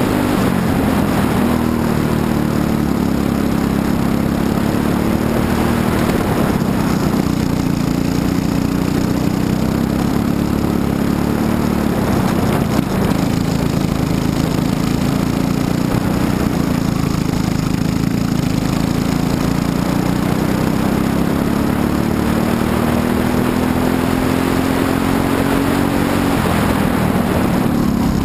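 Briggs & Stratton LO206 single-cylinder four-stroke kart engine heard from on board at racing speed. Its pitch drops under braking near the start, again about six seconds in and near the end, and climbs steadily as the kart accelerates out of each corner.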